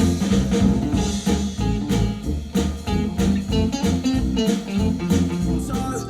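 Jazz music with guitar and drum kit, played back through a pair of Adam Audio A5X powered studio monitors.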